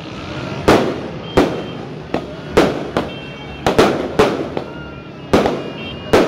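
Aerial fireworks bursting overhead: a rapid, irregular series of about eight sharp bangs in six seconds, each trailing off in a short echo.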